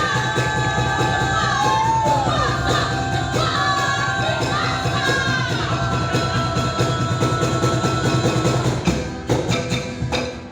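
Live group music performance: voices singing sliding melodic lines over steady percussion, with crowd noise. Near the end the singing drops away and sharp wooden percussion strikes take over.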